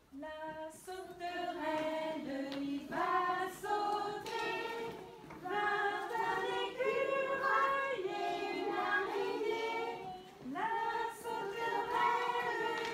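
Young children and women singing a song together in chorus, a string of held notes with a brief pause about ten seconds in.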